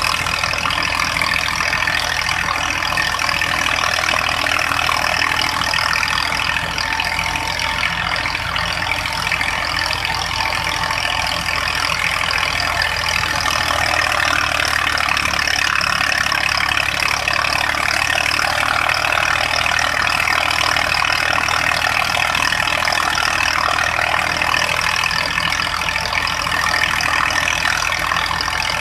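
Tractor's diesel engine running steadily under load, powering a wheat thresher that runs continuously as wheat is fed into it; the machine's dense steady noise with humming tones sits over the low engine drone.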